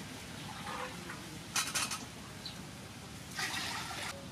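Water being scooped with a plastic bowl from an earthenware jar, with a short splash about a second and a half in, then poured from the bowl into a metal cooking pot near the end.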